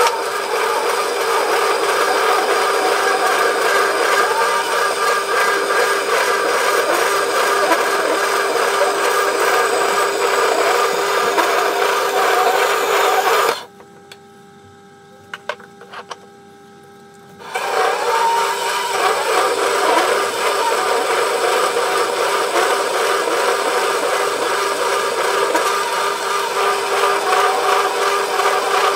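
Small horizontal metal-cutting bandsaw running and cutting through hex steel bar: a steady motor hum with the blade's hiss over it. A little before halfway it goes much quieter for about four seconds, with a few clicks, then starts up again and runs on.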